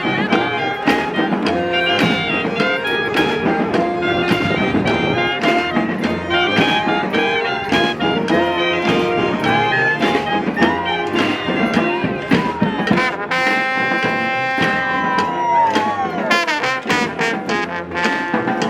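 A street band's horns, trumpets, trombones and saxophones, playing an Afrobeat tune together over a steady beat. About two-thirds through, one horn holds a long high note that bends down at its end.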